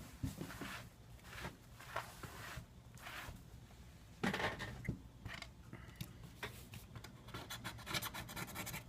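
A small tool scraping and picking at leftover screen adhesive on a Samsung Galaxy S3's frame, in short, irregular, faint scratches.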